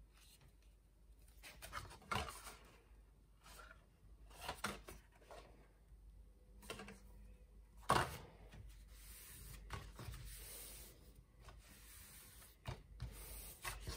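Hands handling and pressing sheets of paper and cardstock: irregular rustling and rubbing of paper, with one louder rustle about eight seconds in.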